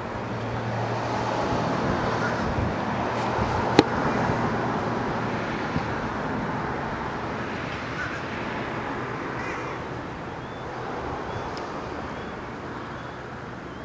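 Steady rush of passing motor traffic with a low engine hum, swelling over the first few seconds and slowly fading. A sharp click about four seconds in, and a few faint bird chirps in the second half.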